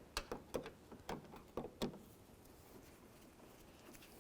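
Light clicks of a socket tool with a T30 Torx bit working the door handle's retaining screw loose, about two a second, which stop about halfway through.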